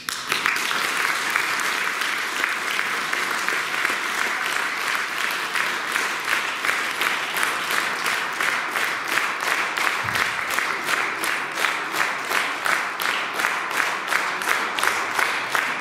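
Audience applause in a hall, starting loose and settling after about six seconds into rhythmic clapping in unison, about three claps a second.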